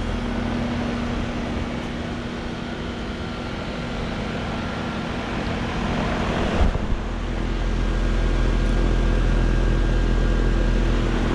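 Trane XB13 3-ton heat pump's outdoor unit running through a defrost cycle: a steady mechanical hum, with a sudden change about two-thirds of the way in, after which a deeper steady hum runs louder.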